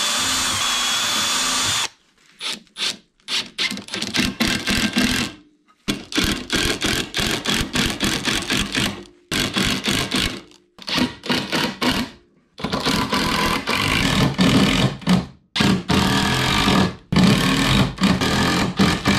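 A steady tool noise stops about two seconds in. After that, a cordless drill-driver runs in many short bursts, driving screws to assemble a wooden frame.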